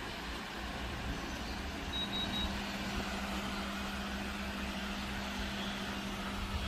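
Cosmos remote-controlled wall fan running with a steady rush of air. About two seconds in, its control unit answers the remote with three quick high beeps, and a steady low motor hum comes in with them.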